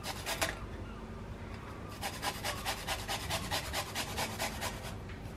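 Flat metal hand grater rasping as fresh garlic and ginger are rubbed across it in quick strokes, about five a second, mostly in the second half.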